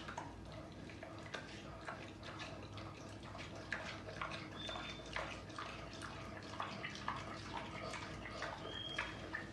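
Mini pig eating, with wet irregular smacking and chewing clicks as it takes food off the floor. A brief high tone sounds twice, about halfway through and near the end.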